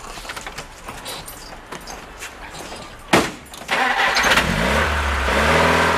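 A door shuts with a loud thump about three seconds in. The GAZ-69A jeep's four-cylinder side-valve petrol engine is then cranked and starts, its pitch rising and settling into a steady run.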